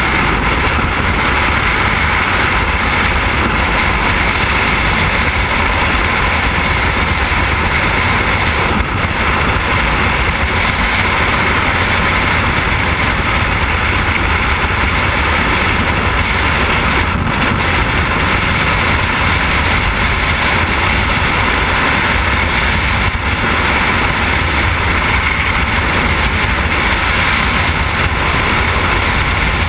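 Freefall wind rushing over a skydiver's camera microphone: a loud, steady rush of air with no let-up.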